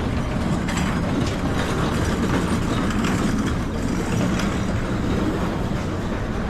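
Steady rumble and rattle of a moving vehicle heard from on board, with no break.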